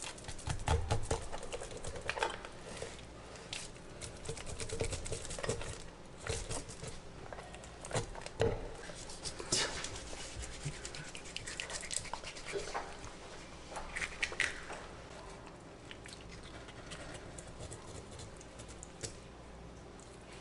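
Kitchen knife scraping scales off a whole tautog (blackfish) on a wooden cutting board: an irregular run of rasping strokes and small ticks as the scales come away, lighter and sparser near the end.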